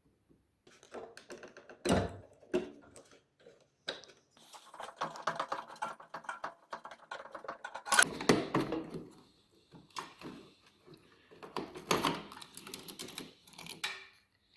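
Irregular clicking, rattling and scraping of hard parts and tools being handled, with louder knocks about two, eight and twelve seconds in.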